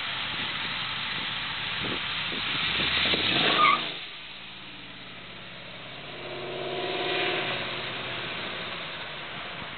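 Jeep Grand Cherokee SRT8's Hemi V8, fitted with a modified exhaust, cam and heads, driving past close by. It gets louder and rises in pitch to a peak about three and a half seconds in, drops sharply as it passes, then fades off with a swell again around seven seconds in as it accelerates away.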